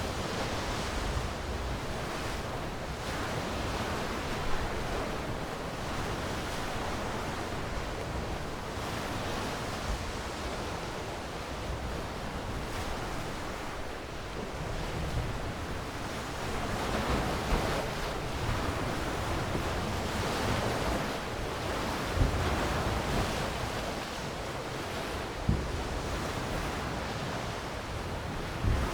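Sea waves breaking and washing onto the shore in slow, continuous swells, with some wind rumble on the microphone.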